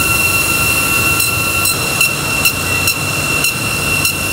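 Bench polishing wheel running with a steady high whine as a stainless steel bottle body is pressed against it. Sharp ticks come about twice a second through the machine noise.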